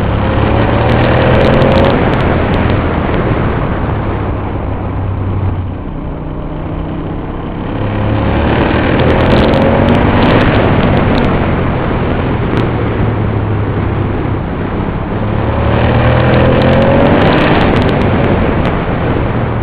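Aprilia Dorsoduro 1200's V-twin engine running under load, its pitch rising as it accelerates three times, about every eight seconds.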